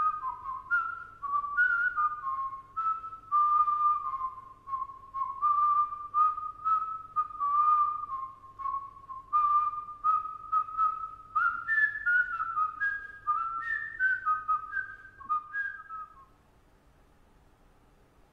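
A man whistling a tune of short notes stepping up and down, breaking off about sixteen seconds in.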